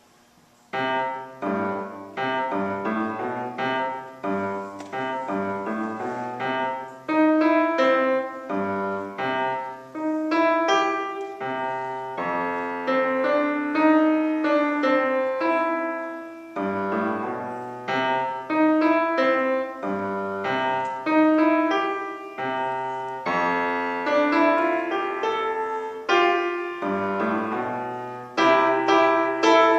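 Grand piano played solo, starting about a second in, with a continuous run of struck notes and chords.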